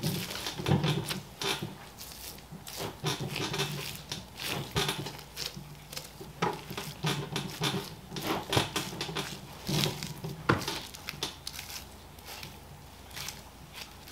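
Thin boning knife cutting along a seam in a beef chuck while the meat is peeled back by hand on a plastic cutting board: irregular small clicks, taps and scrapes.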